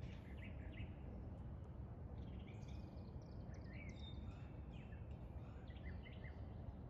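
Faint, scattered bird chirps, short calls that rise and fall in pitch, over a steady low background noise.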